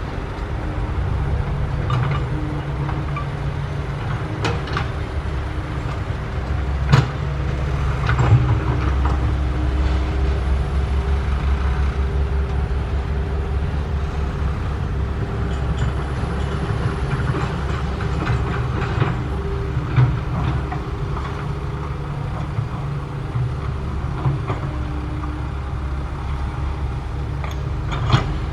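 SANY SY135F hydraulic excavator's diesel engine running steadily under load, with a faint hydraulic whine and a few sharp metallic knocks.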